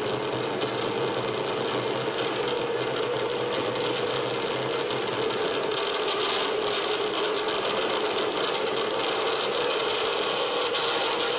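Live harsh noise (Japanoise) performance: an unbroken wall of dense electronic noise with a steady drone in the middle and hiss on top. A low hum under it drops out about halfway through.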